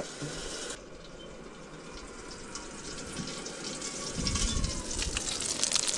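Small canister gas stove burning under a Cobb grill converted to run on gas, a steady hissing rush, with some low rumbling coming in from about four seconds in.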